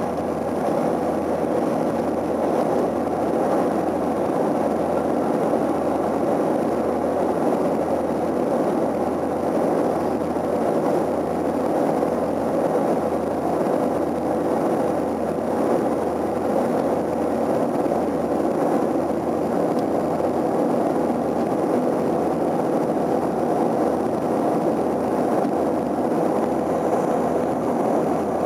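Steady cabin drone of an Antonov An-24's twin Ivchenko AI-24 turboprop engines and propellers, heard from inside the passenger cabin, with a steady hum running through it. The aircraft is on landing approach with the main gear down.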